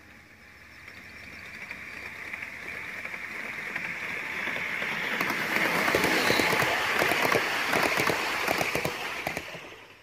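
A gauge 3 garden-railway train running toward and past the listener. Its steady running noise grows louder, then turns into a rapid clatter of wheels clicking on the rails as the coaches roll by, and fades away near the end.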